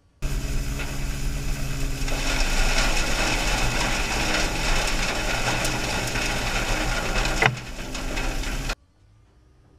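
Victory Sweepers E600 tow-behind sweeper working over asphalt: brushes scraping and rattling, with a steady low hum underneath. A sharp knock comes about seven and a half seconds in, after which it is a little quieter; the sound starts and stops abruptly.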